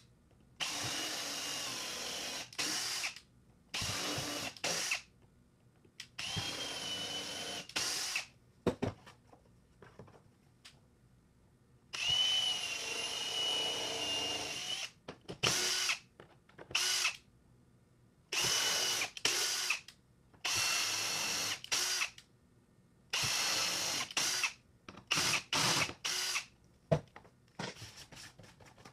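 Milwaukee cordless drill with a bit extension drilling holes through a template into corner blocks. It comes as about a dozen short runs of motor whine with quiet pauses between; the longest, near the middle, lasts about three seconds.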